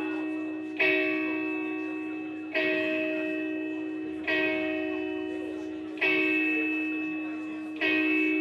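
Guitar striking the same chord five times at a slow, even pace, about one strike every 1.8 seconds, each left to ring and fade before the next, with no drums or bass.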